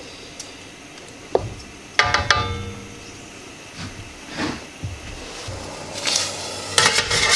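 Metal cookware being handled on a gas stove: a pan lid clanks and rings out about two seconds in, with a few light knocks, then a stainless steel steamer pot clatters near the end.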